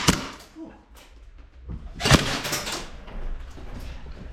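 Sharp mechanical snaps and clacks of airsoft guns in play: one at the very start, then a quick cluster of sharp strikes about two seconds in.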